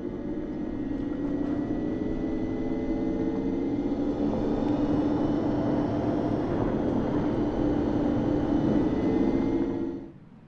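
Alpine A290's synthesised exterior warning sound, played by the electric car at low speed: a layered hum of several held tones drifting slightly upward in pitch, over a rushing noise. It grows a little louder and cuts off abruptly near the end.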